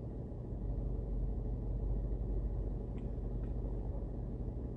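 Steady low rumble inside a car cabin, with two faint clicks about three seconds in.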